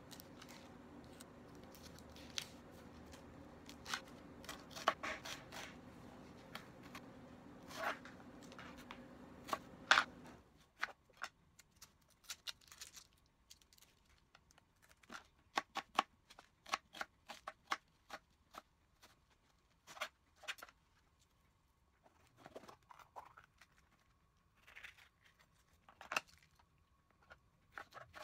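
Dry onion skin crackling as it is peeled by hand, and a chef's knife chopping onion and red bell pepper on a plastic cutting board: sharp knocks in irregular runs. A low steady hum under the first part stops about ten seconds in.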